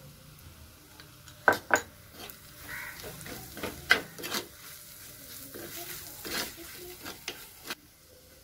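Metal spoon clinking and scraping against a cooking pot as spice powders are worked into frying onion masala, with a light sizzle underneath. The sharp clinks come at irregular moments.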